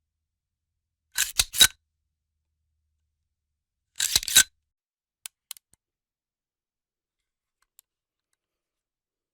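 Metallic clacks of a gun's action being worked: two quick clusters of three or four sharp clicks about three seconds apart, then a few faint ticks.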